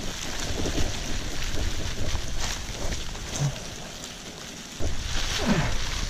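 Live crawfish being shaken out of a mesh sack onto the ground: a dense crackling rustle of many shells and the mesh, with a low rumble from handling and wind on the microphone that drops out and returns about five seconds in.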